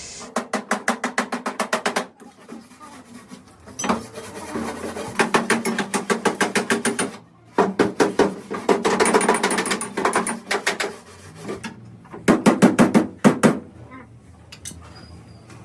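Rapid hammer taps on sheet metal, about seven a second, in four bursts with short pauses between them. Each blow leaves a short metallic ring, typical of panel beating a car body.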